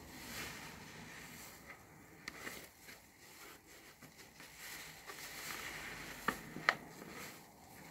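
A new car sponge squeezed and kneaded by hand in thick soap lather: soft wet squishing with crackling foam. Two sharp wet pops a little after six seconds in stand out above the rest.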